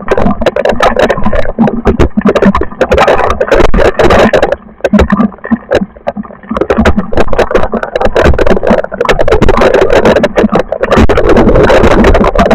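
Loud storm noise: a dense, irregular clatter of impacts over a rushing noise. It eases briefly about five seconds in, then builds again.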